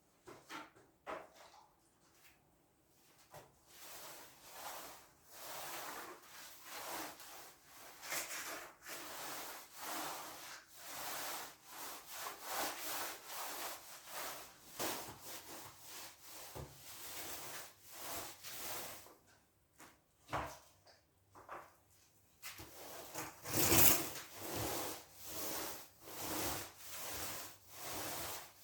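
Repeated rubbing or scraping strokes of a hand tool on a surface, about one to two a second, with a short pause partway through and one louder stroke later on.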